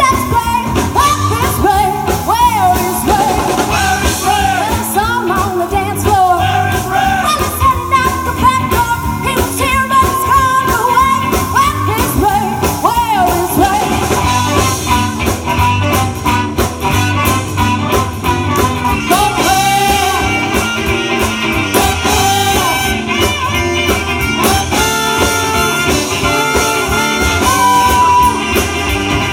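Live swing-soul band: a woman singing lead over electric guitar, bass guitar, drums and a horn section of trumpet, trombone and saxophone.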